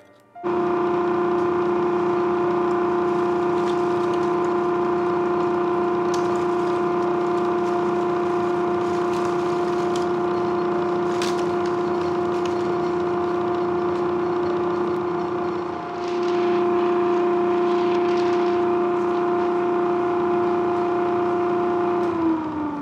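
Homemade plywood dust collector blower running with a steady, high whine while it pulls in sawdust poured into its intake. Near the end its pitch falls steadily as it spins down.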